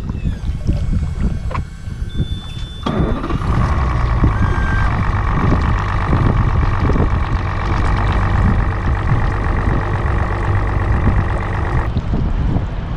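A boat motor runs with a steady whine and a low hum. It starts abruptly about three seconds in and cuts off near the end, over wind rumble on the microphone.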